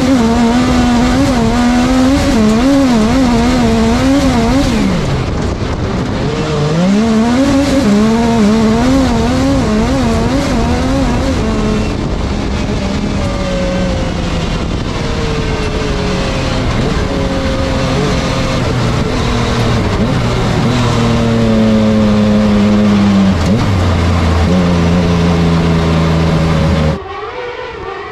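Yamaha MT-09 three-cylinder motorcycle engine of a kartcross car, heard from inside the cockpit while racing on dirt: the revs wobble rapidly up and down for the first dozen seconds, then hold steadier and step down in pitch several times. About a second before the end the sound cuts to a quieter, more distant engine.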